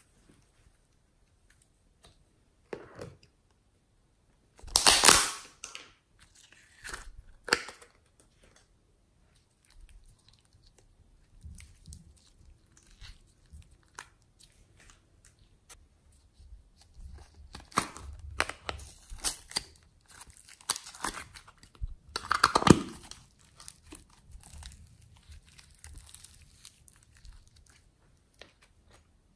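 Glossy slime being squeezed, stretched and pressed by hand into a tray, making sticky squishing sounds in irregular bursts, loudest about five seconds in and again a little past twenty seconds.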